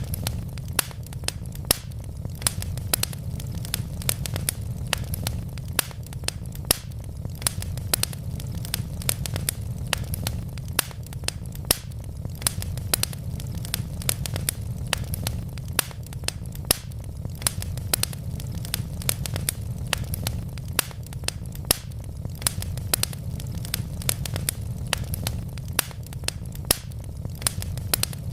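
Wood fire of burning logs crackling, with frequent irregular sharp pops and snaps, several a second, over a steady low rumble.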